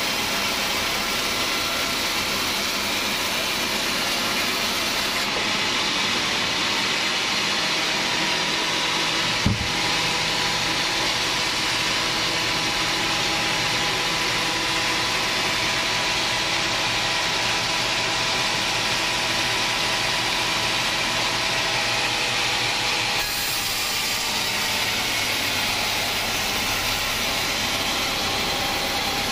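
Band sawmill running and its blade cutting through a hardwood acacia log: a steady, loud machine drone with a faint whine. A single sharp knock about a third of the way through.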